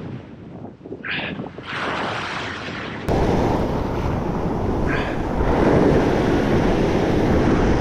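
Ocean swell surging and washing over a rock ledge, with wind buffeting the microphone. The rushing noise steps suddenly louder about three seconds in and stays loud.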